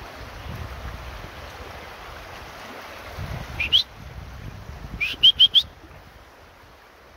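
Wind buffeting the microphone, with one short rising whistle about three and a half seconds in and then four quick rising whistles in a row about five seconds in.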